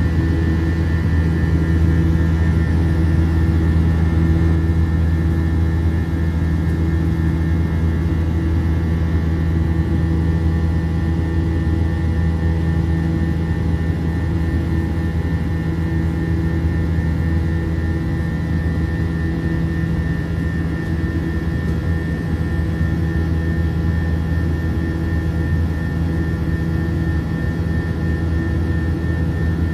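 Airbus A321 jet engines heard from inside the cabin over the wing during the climb after takeoff: a steady low drone with a constant high whine above it.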